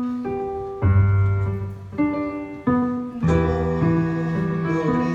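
Live instrumental music from a keyboard and violin duo: notes struck sharply and left to fade, a new note or chord about every second, with a low bass note coming in about a second in.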